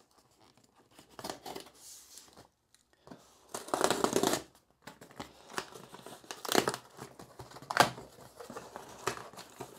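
Scissors cutting open a package, with snips and clicks, and the packaging tearing and crinkling. The longest, loudest rustle comes about four seconds in, and sharp snaps follow near the end.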